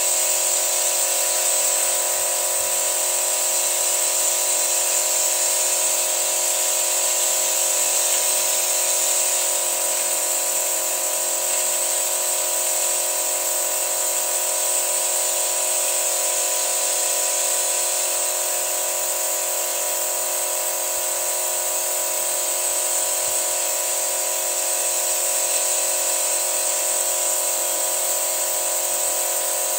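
Toyota petrol engine running steadily while carbon cleaner is fed into it: a constant hum with a steady hiss over it, unchanging throughout.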